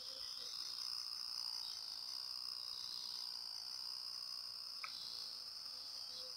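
Crickets trilling in a steady high-pitched chorus, with a fainter, lower pulsing chorus underneath.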